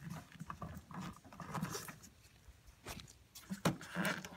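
Rubber air intake boot being twisted and pulled off the throttle body by a gloved hand: scattered short rubbery squeaks, scrapes and small clicks.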